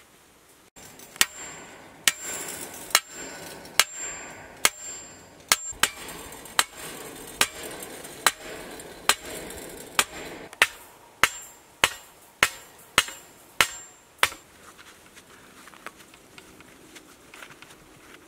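Steel T-post being driven into the ground with a manual post driver: a run of sharp, ringing clanks of steel on steel, about one a second, quickening near the end. The strikes stop about two-thirds of the way in.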